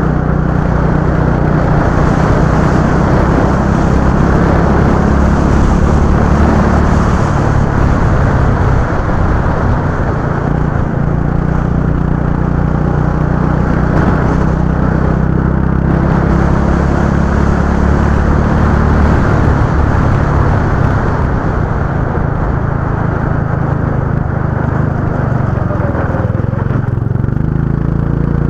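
Go-kart engine noise, running steadily. The engine pitch drops and picks up again every several seconds, around eight seconds in, near the middle and near the end, as the throttle comes off and goes back on.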